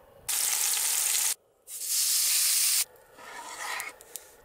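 Beef steak sizzling on a hot pan: two loud stretches of sizzling that each start and stop abruptly, then a quieter sizzle with a couple of light clicks near the end.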